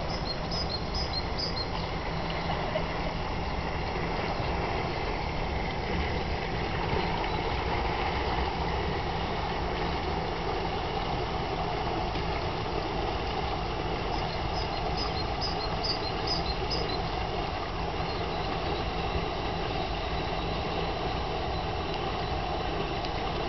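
A river motor cruiser's engine running steadily at low speed as it manoeuvres, a low hum under wind and water noise. A small bird chirps a quick run of high notes twice, near the start and about two-thirds of the way through.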